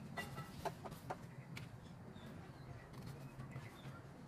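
Faint rustles and a few light clicks as a fresh banana leaf is folded by hand and metal tongs set a steamed glutinous-rice cake into it.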